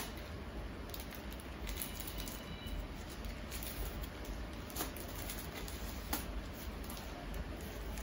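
Thin plastic packaging bag crinkling and rustling in the hands, with scattered small crackles, as a lens cap is pulled out of it; a short sharp sound at the very start as the bag is slit with a utility knife.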